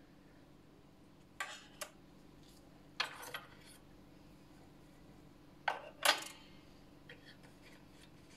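Small hard objects clicking and lightly clattering as fly-tying tools are handled at the vise: three pairs of short knocks about a second and a half apart, with a few faint ticks near the end.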